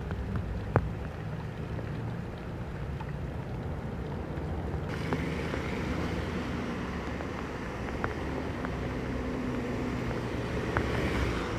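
Rain drops splashing into a puddle, with a few sharp drip clicks over a low rumble. About five seconds in it changes to traffic on a rain-soaked street: cars passing with tyres hissing on wet asphalt and engines running.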